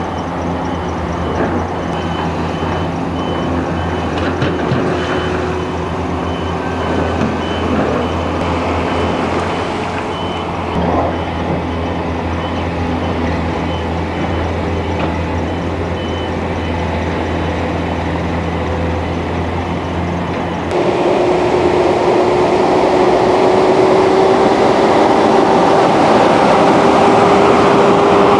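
Heavy diesel dump truck engines running, a steady low drone, with a reversing alarm beeping faintly through the first half. About 21 seconds in the sound jumps louder and closer: one truck's engine with a steady whine, which falls away near the end.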